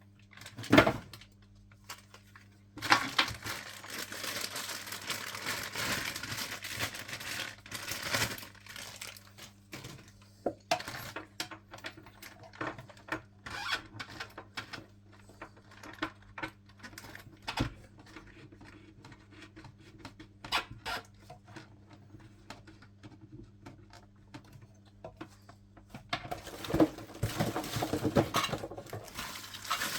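Packaging being handled: plastic crinkling and rustling, with scattered clicks and clinks of small hard parts. The crinkling is heaviest a few seconds in and again near the end.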